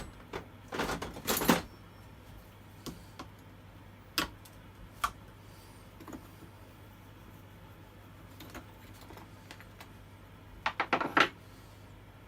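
Scattered clicks and knocks of the chainsaw's plastic cover and parts being handled with tools, as the saw is opened up to reach the air filter and carburettor. There is a clatter about a second in, a few single taps in the middle, and a busier cluster near the end, over a faint steady hum.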